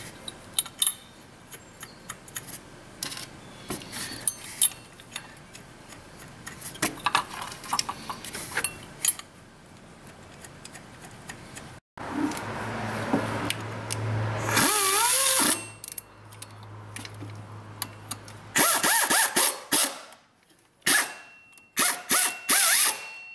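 Water pump pulley bolts being run in: scattered light ratchet clicks and metal taps at first. Then a power tool runs steadily for several seconds, and near the end it goes in a few short loud bursts as the bolts are snugged down.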